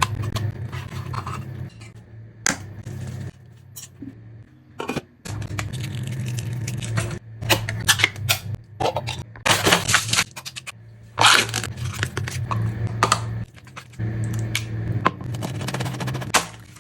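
Kitchen food-prep sounds: utensils and dishes clinking, scraping and rustling in many short, irregular strokes, over a low hum that starts and stops several times.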